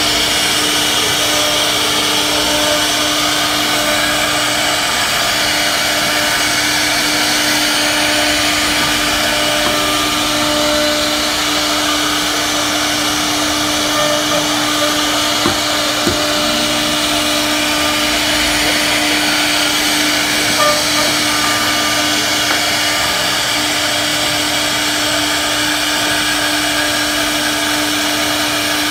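A CNC router spindle runs steadily while its bit mills grooves into a wooden door panel. It makes a constant hum under a steady high hiss, with a few brief ticks around the middle.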